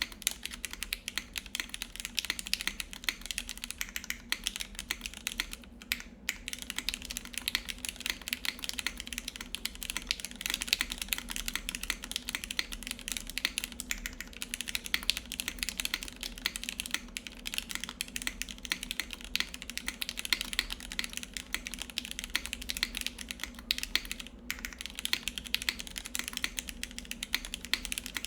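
Continuous typing on a Sensy Lab Supernova 60% mechanical keyboard with lubed Gateron Yellow milky-top linear switches, an ABS plate and GMK Dolch keycaps: a dense, uneven run of key clacks, broken by two brief pauses.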